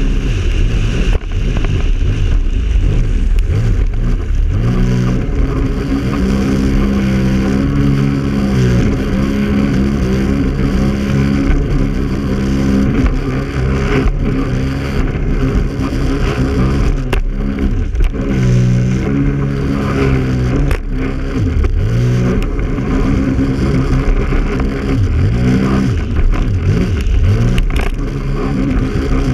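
Sea-Doo Spark 3up 90 hp personal watercraft running at speed, its three-cylinder Rotax engine rising and falling in pitch several times as the throttle is opened and eased off. A steady rush of wind and water runs under it.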